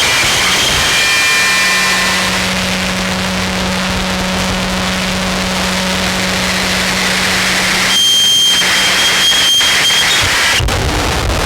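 Harsh, loud wall of noise from a chain of distortion and fuzz effects pedals, including a BOSS Metal Zone and Death By Audio pedals. A steady low drone sits under the noise from about a second and a half in, and gives way near the end to a steady high whine.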